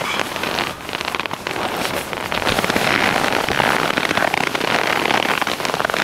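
Storm wind driving snow against a tent's nylon fabric, a dense pattering hiss with fabric rattling, gusting louder about halfway through.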